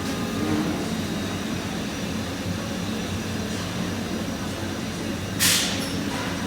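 Steady low mechanical rumble, with a short hiss like escaping air about five and a half seconds in.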